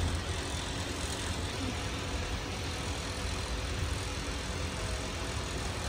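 Garden tour tram driving along, its engine giving a steady low rumble with no change.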